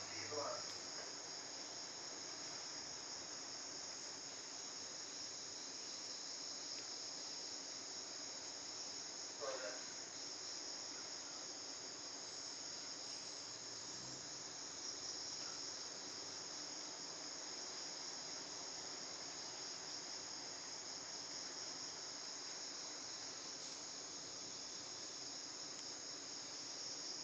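A steady, high-pitched chorus of insects, cricket-like, runs without a break. Two short chirping calls break in, one right at the start and one about nine and a half seconds in.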